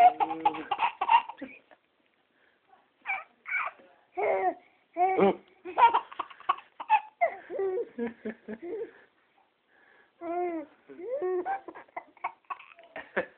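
A six-month-old baby laughing and babbling in short bursts, with a couple of brief pauses, while playing peekaboo.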